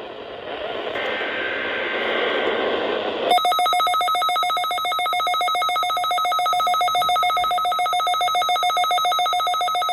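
Weather radio receiver: radio static hiss, then about three seconds in a loud electronic alert tone starts, beeping rapidly and steadily. It is the receiver sounding its alert for a NOAA Weather Radio Required Weekly Test.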